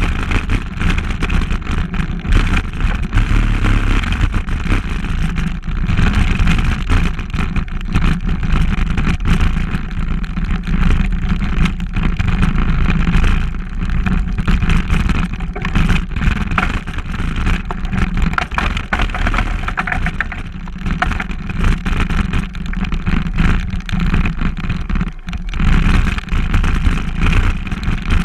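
Steady ride noise from a camera on the handlebars of a vehicle travelling a dirt trail: a loud, continuous low drone with frequent rattles and knocks from the bumps.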